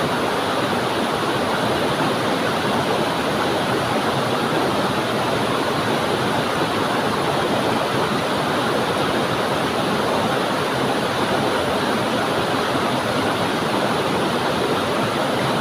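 Waterfall pouring onto rocks and flowing on: a steady, even rush of water.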